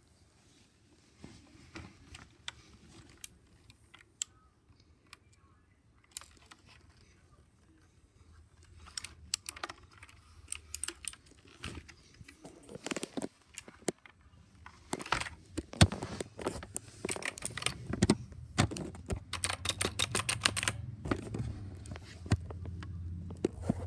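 Typing on a mechanical keyboard: separate key clicks, sparse and slow at first, coming thicker after about eight seconds, with a fast run of keypresses near the end.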